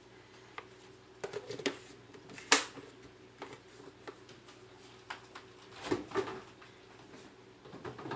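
Kitchen handling noises: scattered clicks, knocks and rustles as a container is moved and set down on the counter, with one sharp knock about two and a half seconds in. In the second half, the refrigerator door is opened. A faint steady hum runs underneath.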